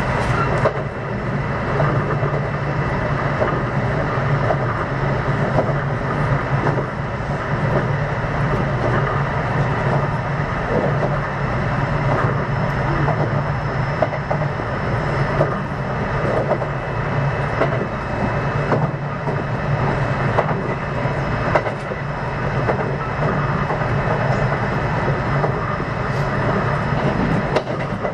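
Kintetsu 9020-series electric train (set 9025F, Mitsubishi traction equipment) running at speed between stations, heard from inside the car: a steady rumble with wheels clicking now and then over rail joints, and faint steady tones above it.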